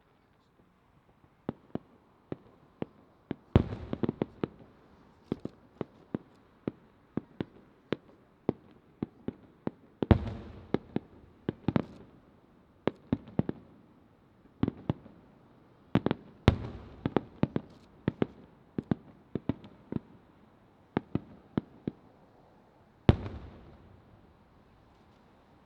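Aerial firework shells bursting overhead: an irregular string of sharp bangs, with heavier booms about three and a half, ten, sixteen and twenty-three seconds in, each trailed by echo.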